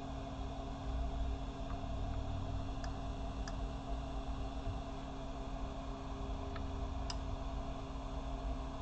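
Steady low hum and hiss, with a few faint light clicks.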